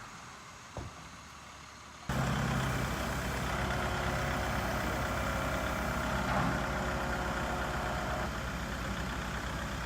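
Kubota MX5800 tractor's diesel engine running steadily, cutting in suddenly about two seconds in after a quieter stretch with a single click.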